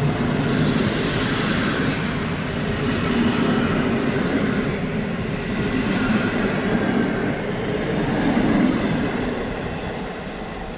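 PKP Intercity passenger coaches rolling past: a steady rumble of steel wheels on the rails that fades as the last coach pulls away near the end.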